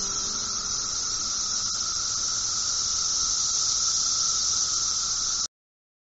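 Steady high hiss with a fainter, narrower whistling band beneath it, cutting off suddenly near the end.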